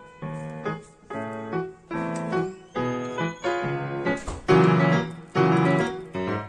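Background music played on piano: a run of short notes and chords, one struck about every half second, with a steady beat.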